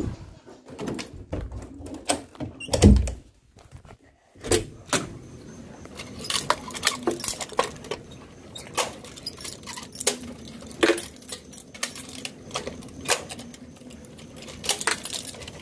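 Handling noise of a phone being moved about: scattered light clicks and knocks, with one dull thump about three seconds in, over a faint steady hum.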